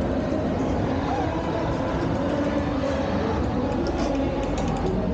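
Steady crowd hubbub: many overlapping voices blur into a continuous din over a low rumble.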